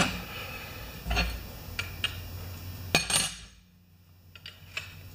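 A few sharp metal clinks and taps from handling a pressure washer wand and its brass fitting with an open-end wrench, the loudest about three seconds in.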